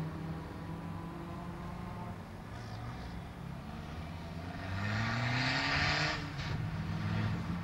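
VW Golf II race car's engine running through an autoslalom run, its pitch dropping and rising as the driver lifts off and accelerates between the cones. About five seconds in the engine climbs in pitch under a rush of hissing noise, the loudest moment.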